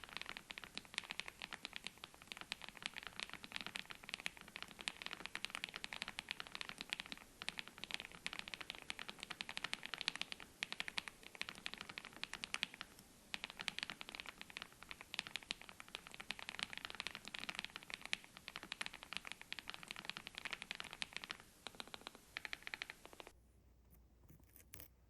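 Fast, continuous typing on a mechanical keyboard fitted with KTT Kang White V3 linear switches: a dense run of key clacks. The typing stops abruptly about two seconds before the end.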